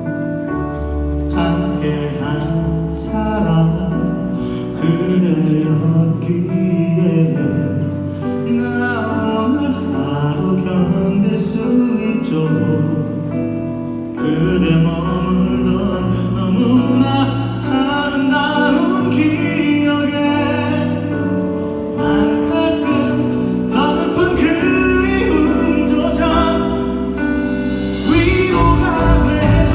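Live concert music: a band playing a pop ballad with singing.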